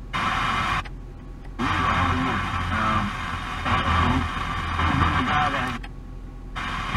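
Car radio scanning up the FM band: short snatches of broadcast audio with voices, cut off twice, about a second in and near the end, by brief silences as the tuner mutes and jumps to the next station.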